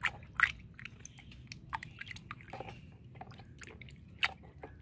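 A hand sloshing and rummaging in a tub of soapy water: irregular small splashes, drips and wet squelches, with two louder splashes, one about half a second in and one near the end.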